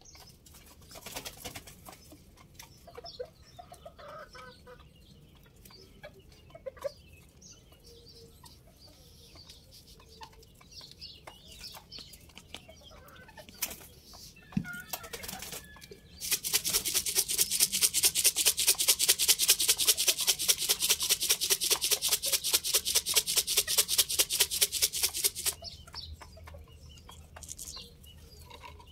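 Chickens clucking faintly, with scattered small knocks. About halfway through, a loud, rapid, high-pitched buzz made of many quick clicks starts, runs for about nine seconds and stops; it is the loudest sound.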